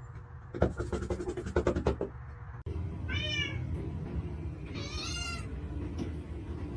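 A cat meowing twice, two short high calls about two seconds apart, after a run of quick light clicks or taps in the first two seconds.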